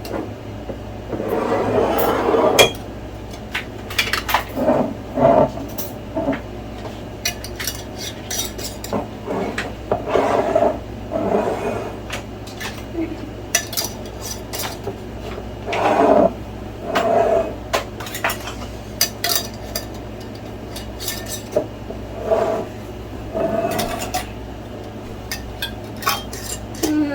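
Glass jars, lids and kitchen utensils clinking and knocking at irregular intervals, with a few short bursts of handling noise.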